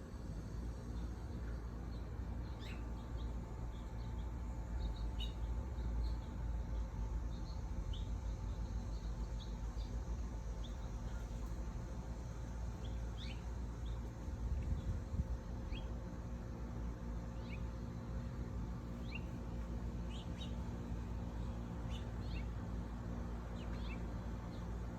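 Small birds chirping: short, high chirps every second or two, over a steady low rumble.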